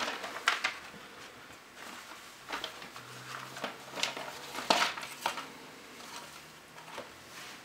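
Tissue paper rustling and crinkling as it is folded back and a silk necktie is lifted out of a cardboard gift box: a string of short, irregular crinkles and soft taps.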